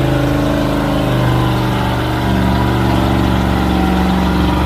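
Off-road truck engine running hard at high revs, its pitch dipping and then climbing to a new steady level about two seconds in.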